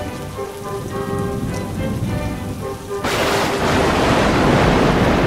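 Thunderstorm: steady rain under soft background music, then about three seconds in a sudden loud crash of thunder with heavy rain that carries on and drowns out the music.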